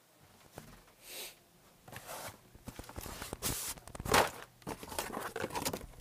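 Cardboard boxes and plastic packaging being handled: irregular rustling, crinkling and scraping, loudest about four seconds in.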